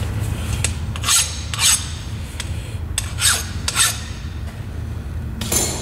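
Hand file rasping across the freshly machined edge of a steam-cylinder casting to knock off the burr: about five strokes, mostly in pairs, over a steady low hum.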